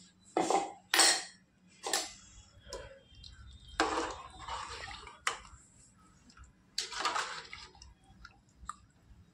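Water splashing in short bursts every second or two, with clinks of dishes or a pot in a kitchen.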